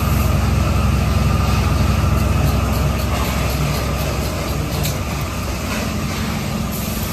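Steady low machine hum with a constant noisy rush above it, like a motor running without a break.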